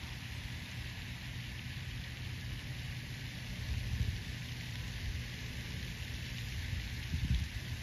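Wind rumbling on the microphone over a steady hiss, with stronger gusts about four seconds in and near the end.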